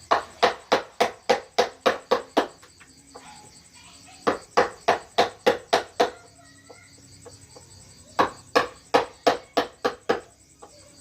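Mallet tapping a carving chisel into wood: runs of quick, even strikes, about three a second, broken by short pauses twice.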